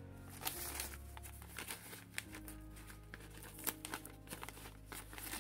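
Paper envelope being handled and opened, crinkling in small irregular rustles.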